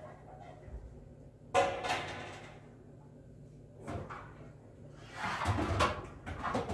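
Pots and dishes being handled at a kitchen sink. A sharp knock with a short ring comes about a second and a half in, then a single click, then a stretch of busy clattering near the end.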